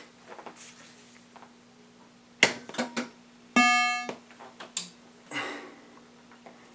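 Pinball machine in play: a steady electrical hum under sharp mechanical clacks, with a half-second buzzy electronic tone from the game's sound about three and a half seconds in.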